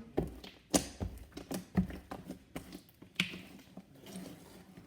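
Sticky slime being kneaded and squeezed by hand, giving a string of irregular wet clicks and pops.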